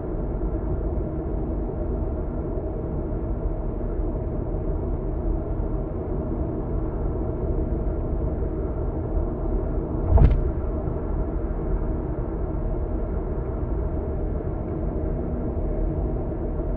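Steady road and engine noise heard inside a moving car. A single short thump about ten seconds in stands out as the loudest moment.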